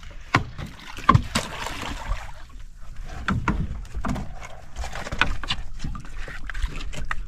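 Knocks and clatter against a wooden outrigger boat's hull as a foam float and longline are thrown over the side, with a short splashing hiss about a second in, over a steady low rumble.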